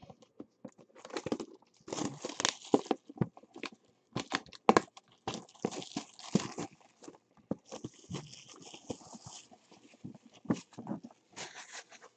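Clear plastic shrink-wrap being torn off a cardboard box and crumpled in the hands: a dense, irregular run of crinkles and crackles.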